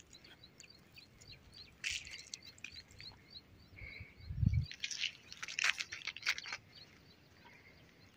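A small bird chirping over and over in a quick run of short, high chirps. A low thump comes about four and a half seconds in, followed by a short spell of crackling rustles.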